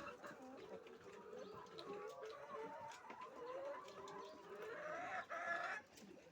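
A flock of laying hens clucking and calling over one another in a steady chorus, with a few sharp clicks; the calling swells louder about five seconds in.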